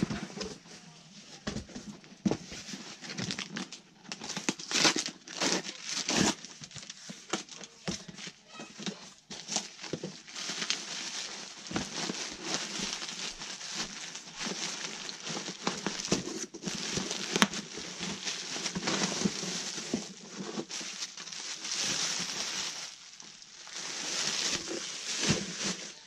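Cardboard box and plastic bubble wrap being handled and pulled apart: irregular crinkling and rustling with many short, sharp crackles.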